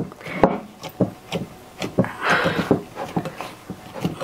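Hands kneading a soft, rested chapati dough in a glass bowl: dull thumps, about two a second, as the dough is pressed and folded, with a longer rubbing sound about two seconds in.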